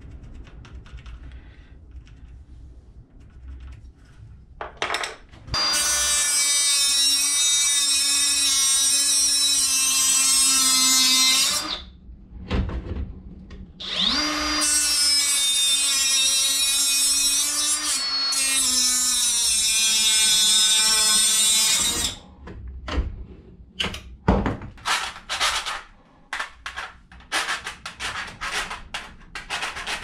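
Ryobi angle grinder cutting through metal wiring channel with a cut-off wheel: two runs of steady high whine and grinding, about six and eight seconds long, the second starting with a quick spin-up. Short clicks and knocks of the cut pieces being handled follow.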